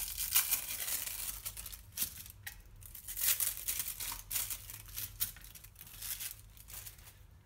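Thin plastic wrapper being peeled off imitation crab sticks (kani) by hand: irregular crinkling and tearing of the film, in uneven spurts.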